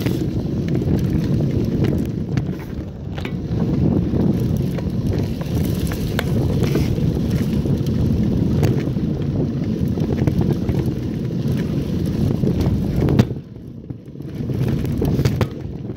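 Mountain bike ridden along a dirt track: wind buffeting the handlebar-mounted microphone over the rumble of the tyres on dirt, with a few knocks. It goes quieter for a moment about 13 seconds in.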